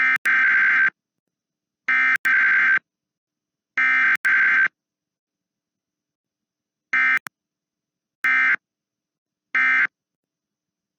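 Emergency Alert System SAME data bursts, the modem-like digital tones of an EAS test. Three header bursts of about a second each come about a second apart, then after a short gap three brief end-of-message bursts. No long attention tone plays between them, as in a required weekly test.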